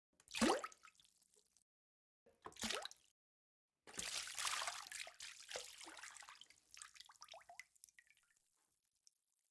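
Three separate water splashes with dead silence between them: a short sharp splash, a second brief one about two seconds later, then a longer splash about four seconds in that trails off into scattered drips over several seconds.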